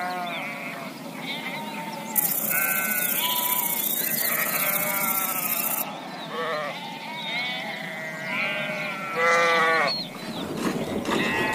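A flock of sheep bleating, many wavering calls overlapping one another, with one loud bleat shortly before the end. A steady high hiss sits over the calls from about two seconds in until about six seconds.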